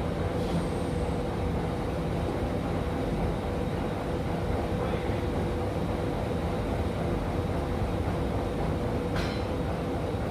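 Forge-shop machinery running steadily: a constant drone with an even hum and no hammer blows.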